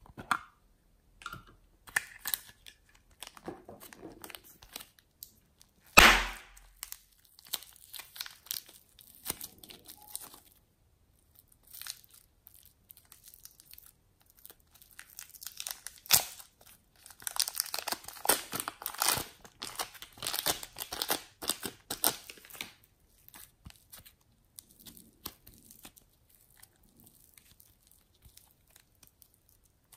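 Thin clear plastic crinkling and tearing as a small knotted plastic bag is worked open by hand, densest and loudest in the middle stretch. There is one sharp snap about six seconds in.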